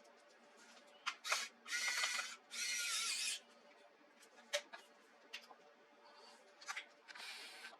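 Small parts of a laptop being handled during disassembly: a few sharp plastic clicks and three short scraping sounds, two of them close together about two seconds in and one near the end.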